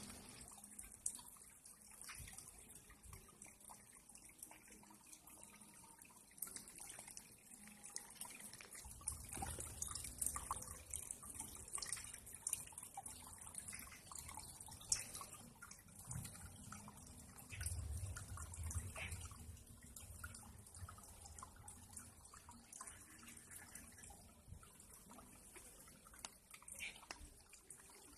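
Water dripping and trickling: a faint, irregular patter of small drips over a steady hiss. A low rumble comes in twice, about a third of the way in and again a little past the middle.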